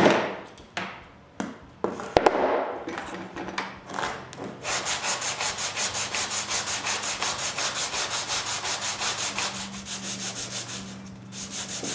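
A few knocks and clicks, then from about five seconds in steady rhythmic sanding of a glued-up hardwood frame, about four strokes a second, over a faint low hum.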